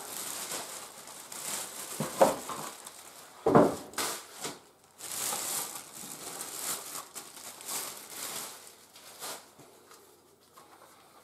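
Clear plastic packaging bag crinkling and rustling as it is handled and pulled off a packed part. A couple of sharper handling knocks come about two and three and a half seconds in.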